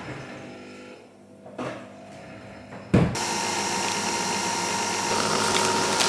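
A couple of soft knocks, then a sharp clunk about three seconds in as a capsule coffee machine starts brewing. Its pump and motor then run with a steady whine while coffee pours into a glass mug.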